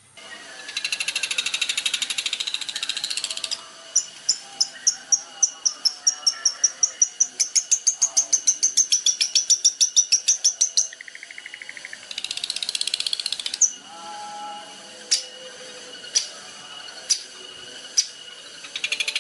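Songbird singing: a dense, scratchy chatter, then a long run of quick repeated whistled notes, about five a second, creeping slightly upward in pitch. After that comes more chatter and four sharp single chips about a second apart near the end.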